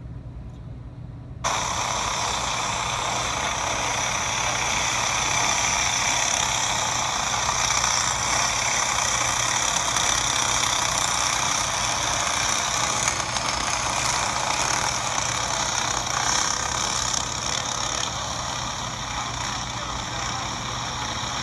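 A pack of dirt-track racing karts' engines running at speed in a race, heard played back through a phone's speaker. The sound cuts in suddenly about a second and a half in and then holds steady.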